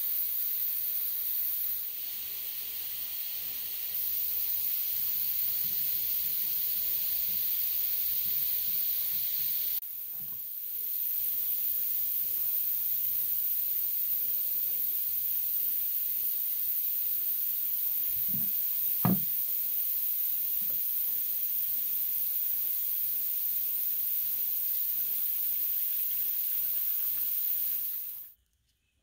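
A steady high hiss that steps up and down in level a few times, with two light knocks about two-thirds of the way through. It cuts off abruptly near the end.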